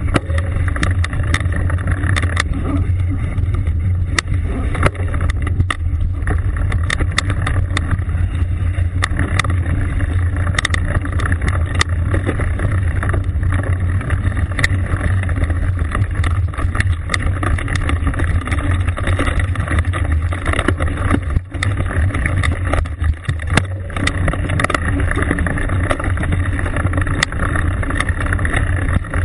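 Wind buffeting a bike-mounted camera's microphone on a mountain bike riding fast over rough grass, a steady low rumble with frequent rattles and knocks as the bike jolts over the ground.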